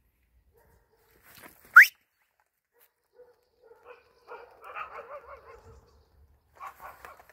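Dogs barking faintly, a run of barks about four to six seconds in and a few more near the end, from other dogs that seem unfriendly. Before them, about two seconds in, one short sharp rising squeal, the loudest sound.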